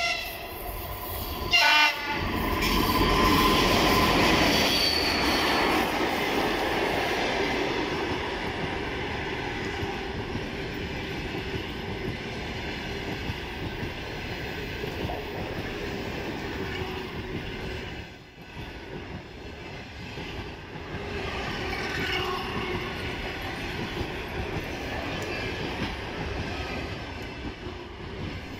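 ChS7 electric locomotive sounding two short horn blasts in the first two seconds, then passing close by, loudest about three to five seconds in. A long train of passenger coaches follows, its wheels rolling steadily over the rails.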